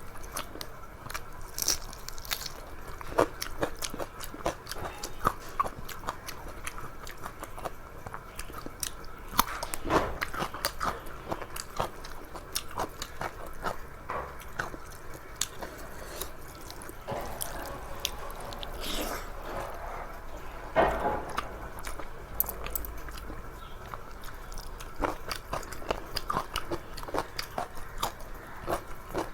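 A person chewing food close to the microphone, with irregular wet smacks and small crunches.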